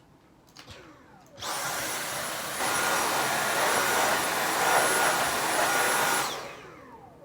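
Dyson V7 Trigger handheld cordless vacuum switched on: the motor spins up quickly to a steady whooshing run with a high whine, gets louder about a second later, then is switched off and winds down with a falling whine near the end.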